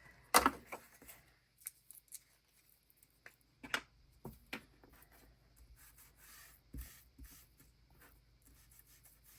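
Small taps and clicks of craft supplies being handled on a desk, with faint scraping between them. The loudest tap comes about half a second in.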